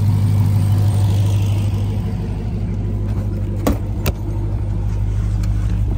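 Supercharged V8 engine idling with a steady, deep rumble. Two sharp clicks come a little past halfway.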